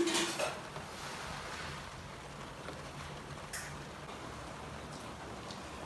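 Steady rain hiss that starts abruptly, with a single faint click about three and a half seconds in.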